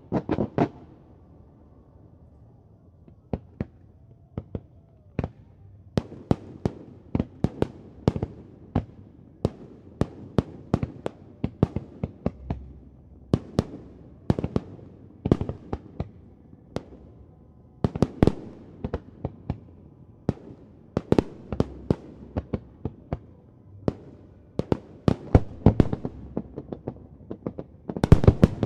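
Fireworks display: many sharp bangs and crackles from bursting shells, coming in irregular clusters. There is a short lull about a second in, and dense volleys near the end.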